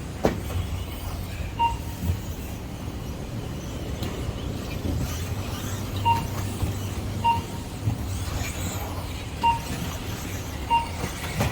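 Five short, identical electronic beeps at irregular intervals, typical of a lap-timing system registering RC buggies crossing the line. A steady low rumble runs underneath.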